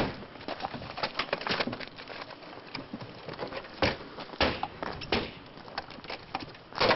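Irregular clicks, taps and knocks, like things being handled or knocked about, with a few louder knocks about four, four and a half and five seconds in and again near the end.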